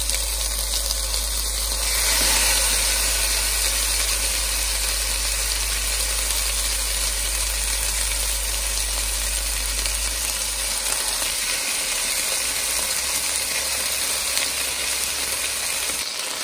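Raw pork chorizo sizzling steadily in a hot frying pan, a little louder about two seconds in.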